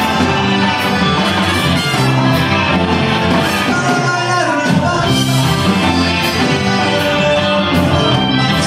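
Live band playing Tex-Mex rock and roll: electric guitars, bass, keyboard, drum kit and accordion, with a steady drum beat.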